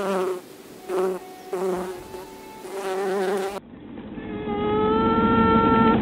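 Queen honeybees piping and quacking. First come several short, wavering, low-pitched pulses, the quacking of queens still in their cells. About three and a half seconds in, after a cut, comes a long tone that rises in pitch at its start and then holds: the opening pulse of a virgin queen's toot.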